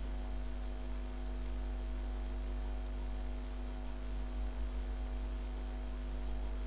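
Steady low electrical hum with a faint hiss, and a faint, fast, regular high ticking of about five a second, like electrical interference in the recording.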